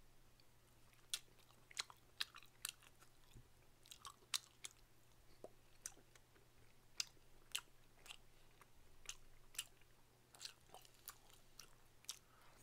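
Very faint chewing of tteokbokki rice cakes: scattered small clicks and smacks, roughly one or two a second.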